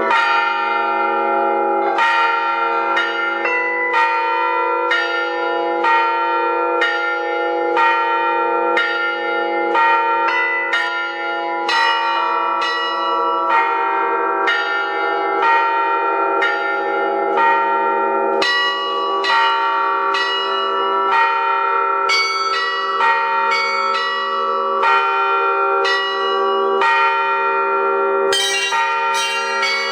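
Russian Orthodox-style bell ringing on thin-walled bells together with thick struck metal bila: a rhythmic pattern of strikes, about one a second, each leaving long overlapping ringing tones over a steady low hum. Near the end the strikes come faster and brighter.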